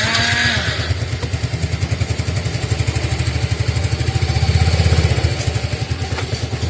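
Yamaha Mio Soul i fuel-injected single-cylinder scooter engine catching just after being started, then idling with a fast, uneven beat that swells briefly about four to five seconds in. The idle is shaky because the engine is still cold, now that the rat-chewed injection wiring is repaired.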